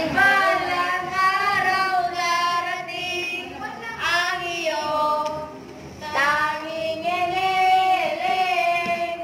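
A single high voice singing a melody without accompaniment, with long held notes and a short break about five and a half seconds in.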